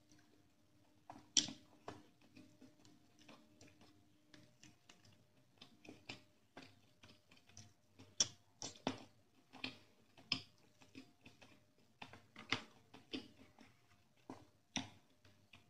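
Close-miked eating of rice and chicken curry by hand: irregular wet clicks and smacks of chewing and of fingers mixing rice on a steel plate, busier from about six seconds in.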